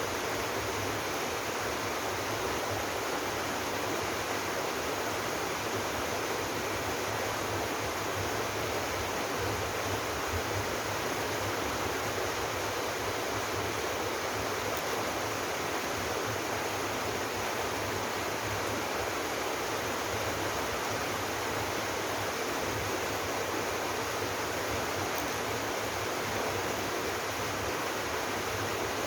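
Waterfall in a mountain valley stream, falling water rushing steadily without a break.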